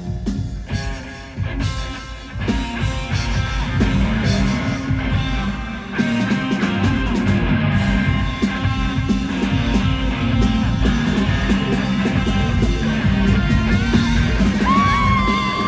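Live rock band of electric guitars, bass and drums playing loud, building up in two steps, about two and a half seconds in and again about six seconds in.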